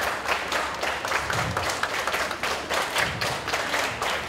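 A troop of scouts doing a rhythmic scout clap cheer (a 'ten-clap'): many hands clapping together in a set pattern, with a heavier thud about every second and a half.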